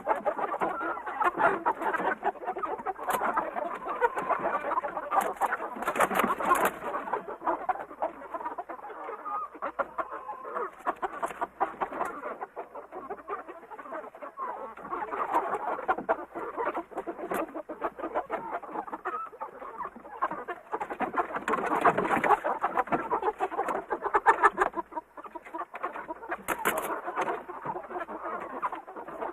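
A flock of birds calling continuously, many short calls overlapping into a busy chatter that swells and eases without a break.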